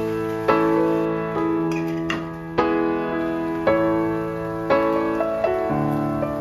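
Background piano music: soft chords struck about once a second, each one ringing out and fading before the next.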